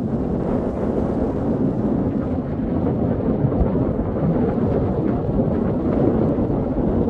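Wind buffeting the microphone: a steady, loud low rumble that rises and falls a little.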